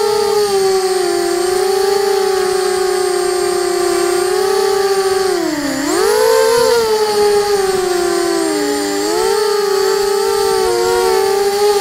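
QAV250 racing quadcopter's electric motors spinning DAL 5040 propellers, a steady high whine heard close up from the onboard camera. The pitch drops sharply about six seconds in and then climbs back up, with a smaller dip near nine seconds, as the throttle changes.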